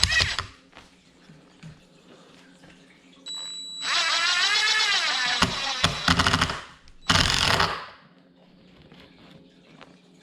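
A power drill driving a screw into a wood block: the motor runs for about three and a half seconds, its pitch sagging and recovering as the screw bites, then a second short burst of the drill.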